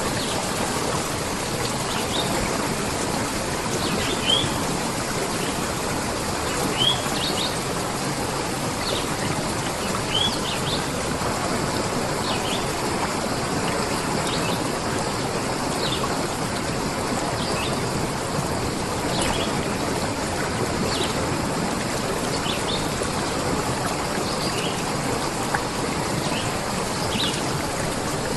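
Stream water running steadily, with short high bird chirps scattered over it every second or two, a few of them rising.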